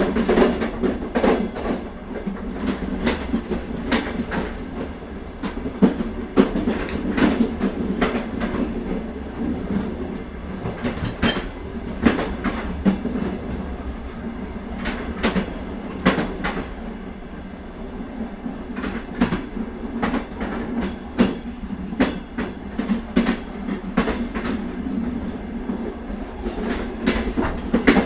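Indian Railways train running along the track: a steady rumble with a string of sharp wheel clicks over the rail joints.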